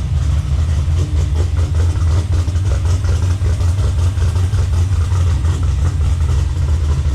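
The SS's turbocharged engine idling steadily as it is run up to warm.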